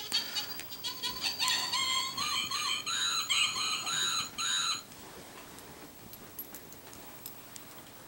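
Young Yorkshire terrier puppies yipping rapidly, then squealing and whining together in high, wavering cries. The cries stop after about five seconds and leave only faint scuffling.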